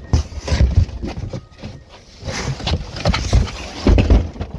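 A run of irregular knocks and heavy thumps with rustling, like things being moved and handled close to the microphone. The loudest thuds come near the start and again about four seconds in, and the sound stops suddenly.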